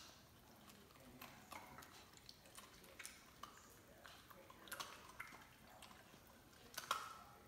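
German Shepherd puppy licking and mouthing small pieces of ice on a hardwood floor: faint, irregular clicks and wet ticks, with one louder click near the end.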